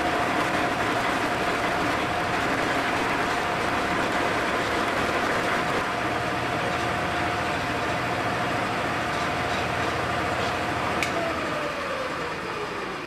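Electric buffing machine running with a steady hum while a wooden drum hoop is buffed against its wheels; about eleven seconds in the motor is switched off and spins down, its tone falling.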